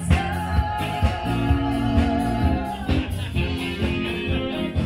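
Upbeat band music with guitar and a steady beat. A long held note with vibrato runs through the first half.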